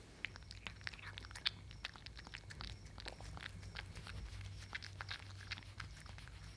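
Cat eating a small piece of soft custard pudding from a dish: quick, irregular wet mouth clicks and chewing sounds.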